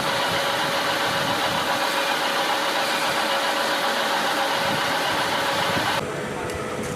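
A machine running steadily, with a constant hum over a wide hiss; about six seconds in it gets a little quieter and its tone drops slightly.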